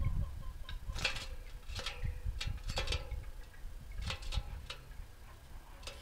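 A canary moving about its wire cage: irregular sharp clicks and taps, about ten over the few seconds, as it lands on perches and bars. A low rumble runs underneath.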